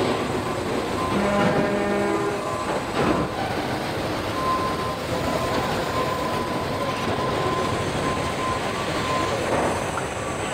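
Car body-shop production line with industrial robots and machinery running: a steady mechanical din. A short pitched hoot comes about a second in, a sharp clank at about three seconds, and a thin steady whine through the middle.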